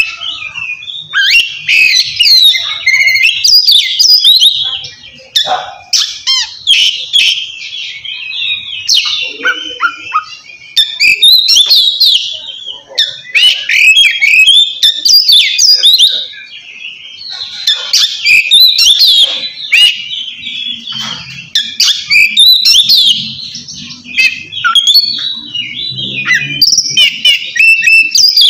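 Oriental magpie-robin (kacer) singing loud, clear, varied whistled phrases in the 'ngeplong' style, a song that calls out to a rival. The phrases come in runs of several seconds with brief pauses between them.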